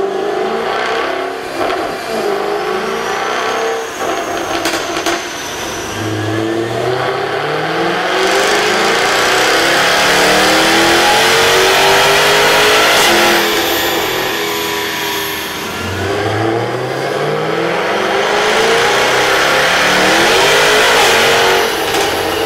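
Jaguar F-Type R's supercharged 5.0-litre V8 running on a chassis dyno, revving unevenly at first, then climbing steadily in pitch through a long pull from about six seconds in. Revs drop briefly after that, and a second steady climb follows near the end.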